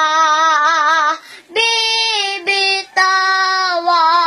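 A young girl singing unaccompanied, drawing the words of a Tagalog song out into long held notes with vibrato. There are short breaks for breath about a second in and again near three seconds.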